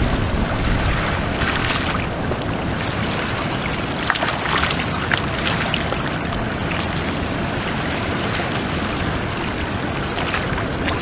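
Steady wind buffeting the microphone over river water lapping at the shore, with a few brief splashes from a hooked smallmouth bass thrashing at the surface as it is drawn in.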